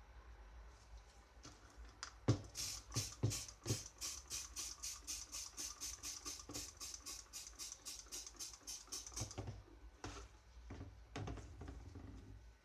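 A few knocks, then a quick, even run of scraping strokes, about five a second for several seconds, like hand sanding or scrubbing. Scattered handling knocks follow near the end.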